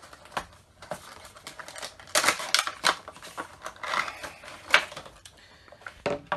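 Cardboard Funko Pop box being opened by hand: its flaps and clear plastic insert rustle and click in quick irregular bursts as the vinyl figure is pulled out, busiest about two seconds in and again around four seconds.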